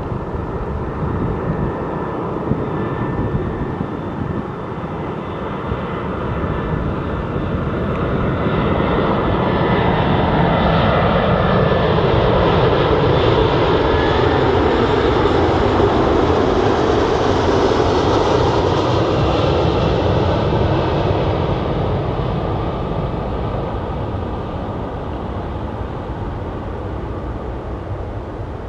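Airbus A340-300's four CFM56 turbofan engines on landing approach: a jet roar that grows louder as the airliner passes close by and then fades, its whine falling in pitch as it goes away.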